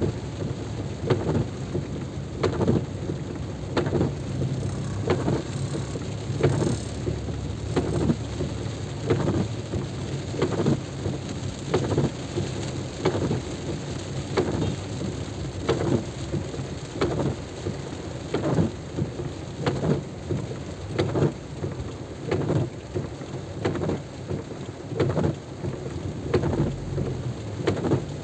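Heavy rain, a dense steady rush with a regular pulsing beat about three times every two seconds.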